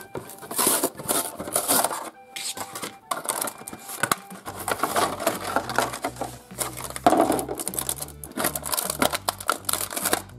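Clear plastic blister packaging crackling and clicking as it is pried apart by hand and a plastic toy egg is worked out of it.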